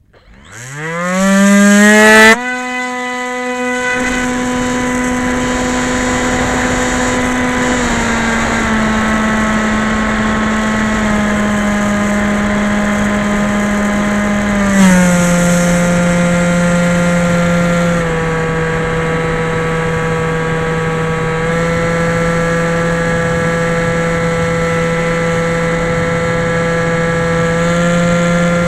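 Electric motor and propeller of a Skyhunter FPV model plane spinning up, the whine rising steeply in pitch for about two seconds. It then drops suddenly and runs on as a steady whine that steps down in pitch a few times.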